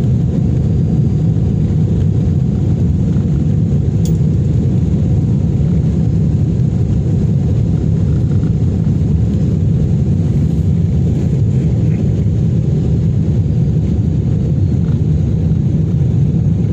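Jet airliner cabin noise heard from a window seat over the wing: a steady low rumble of the engines and airframe as the plane rolls along the ground. A single sharp click sounds about four seconds in.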